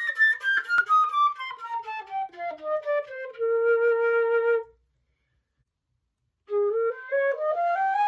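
Concert flute playing a quick descending scale that settles on a held low note; after a silent break of about a second and a half, a rising scale begins near the end.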